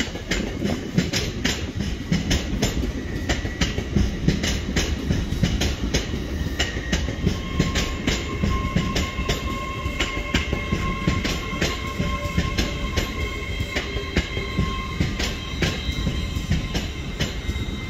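LNER Azuma train running past, its wheels clicking rapidly over rail joints and pointwork. A thin, high wheel squeal sets in about halfway through and runs under the clicking.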